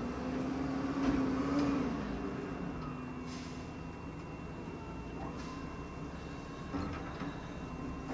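Garbage truck engine running steadily, with a pitched tone that drops about two seconds in and two short hisses around three and five seconds in.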